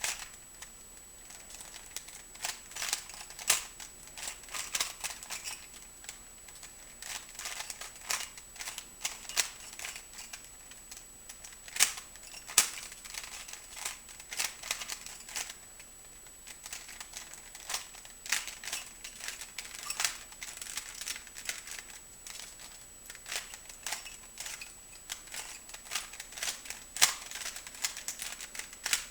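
Plastic Rubik's cube being turned by hand: irregular runs of quick clicks and rattles as its layers snap round, with brief pauses between runs.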